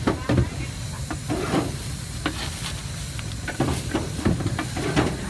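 Thin plastic bag crinkling and rustling, with short clicks of food and utensils being handled as an order is bagged, over a steady low hum of street traffic.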